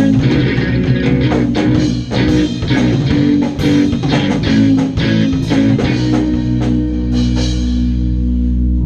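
Live ska-punk band of electric bass, electric guitar and drum kit playing in a rehearsal room. The drums stop about six seconds in, and a held chord rings on.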